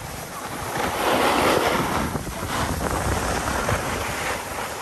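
Wind rushing over the microphone and skis hissing and scraping over packed snow, loudest between about one and three seconds in.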